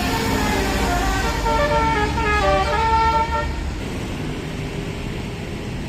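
A tour bus's basuri telolet horn playing a tune of quick stepped notes over a low engine rumble, stopping about three and a half seconds in; after it, only the steady noise of the bus and surroundings.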